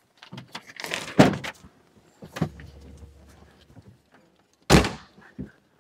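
A person climbing into a car's driver's seat: shuffling and rustling against the seat and body, with a few thumps, the loudest two about a second in and about a second before the end.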